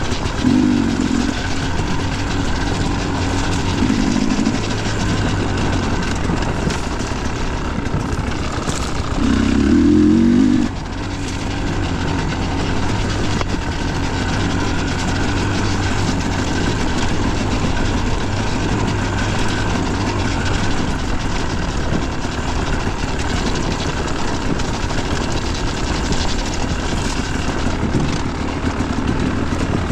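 Dirt bike engine running at trail speed, its note swelling in short bursts of throttle, with the longest and loudest about nine to ten seconds in.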